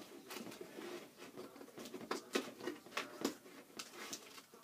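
Scissors cutting and scraping at a cardboard shipping box: a run of irregular scratchy snips and scrapes.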